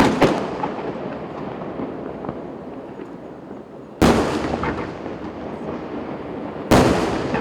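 Aerial firework shells bursting overhead: loud sharp booms at the start (two close together), about four seconds in and near the end, each trailing off in a long rumbling fade.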